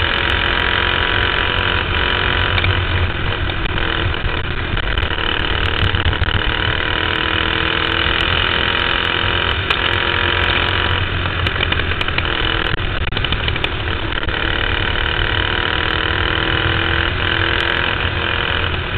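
Dirt-track cage kart engine running hard under racing, picked up by the kart's onboard camera, its pitch rising and falling gently through the turns.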